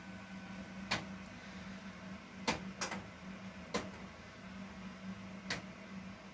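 Siemens Siwamat XL1250 washing machine running: a steady low hum with sharp knocks at irregular intervals, five in all.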